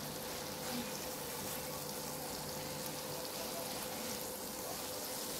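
Chicken pieces in a thick chili glaze sizzling in a frying pan as a steady hiss, with a faint steady hum underneath.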